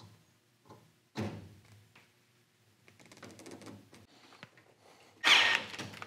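Hand tools and wires handled against a furnace's sheet-metal panel and outlet box: a thunk about a second in, faint clicks and rustling, then a louder clatter lasting under a second near the end.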